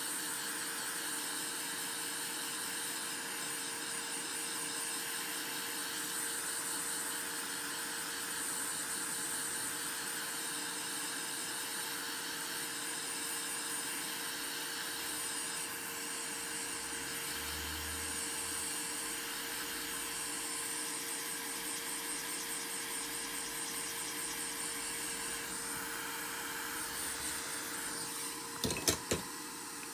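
Steady machine hiss with a constant tone, like a small fan or blower running; a few sharp clicks near the end.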